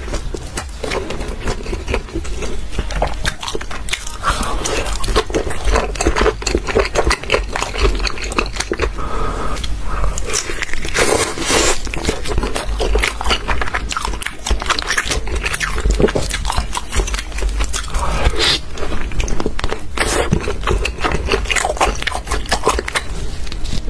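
Close-miked eating of saucy spicy stew: wet chewing, biting and sticky smacking clicks, with meat being torn apart by hand.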